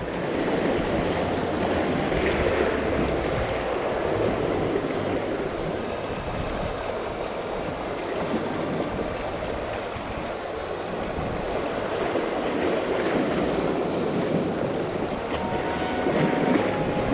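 Sea waves washing and churning around breakwater tetrapods, rising and falling in loudness every few seconds.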